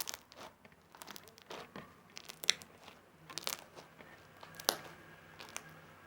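Fluffy shaving-foam slime being handled and squeezed by hand, giving off irregular sharp clicks and crackles, with a few louder pops.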